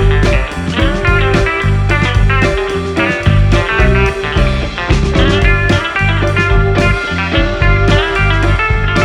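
Background music: guitar-led blues-rock with a steady beat.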